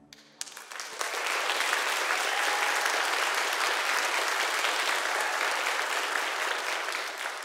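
Congregation applauding at the end of a song: a few scattered claps, then full applause from about a second in that holds steady and begins to fade near the end.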